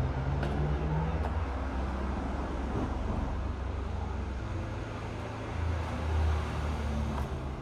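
Low, steady motor-vehicle engine rumble, swelling briefly about six seconds in.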